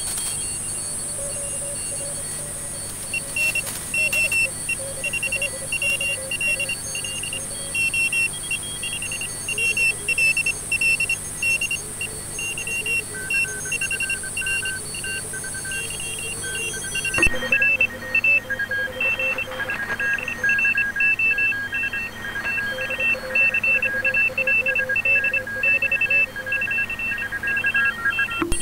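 Morse code (CW) signals on the 40-metre ham band coming out of a homebrew regenerative shortwave receiver: several stations heard as keyed beeping tones at different pitches, sending irregular dots and dashes over receiver hiss. About 17 seconds in, the audio cuts abruptly to the other receiver being compared, with less high-pitched hiss behind the beeps.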